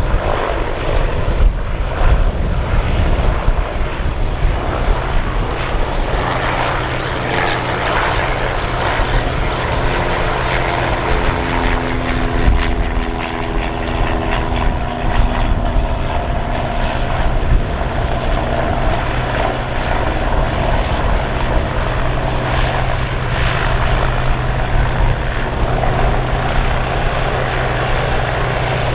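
A Piper PA-31 Chieftain's twin turbocharged six-cylinder Lycoming piston engines and propellers running steadily at low taxi power.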